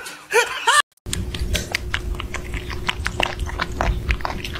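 Kittens eating from a metal bowl: a fast, uneven run of small clicks and smacks from chewing, over a steady faint hum. Before that, a person's brief laughter cuts off about a second in.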